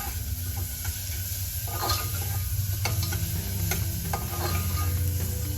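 Onion-tomato masala frying in oil in a kadhai, sizzling steadily while a spatula stirs and scrapes the pan a few times; the tomato and ground paste are being fried down before the spices go in. A steady low hum runs underneath.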